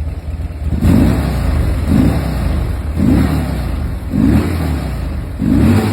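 Buell X1 Lightning's air-cooled V-twin engine running, its throttle blipped five times about once a second, each rev rising and then falling back toward idle.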